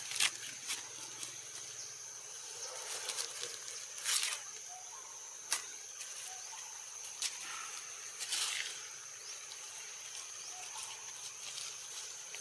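Steady high-pitched insect chorus in the trees, with a few short crackles scattered through it.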